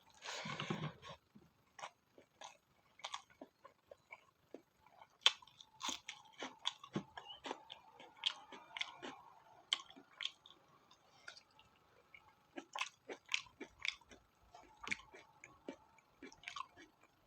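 Close-miked chewing of spicy pork fat: a steady run of short wet smacks and crunches, with one longer, louder noise in the first second.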